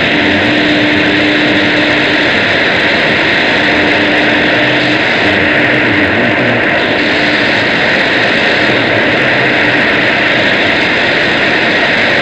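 Shortwave radio receiver hiss and static, a steady roar of noise that buries the broadcast, with a faint low hum that comes and goes.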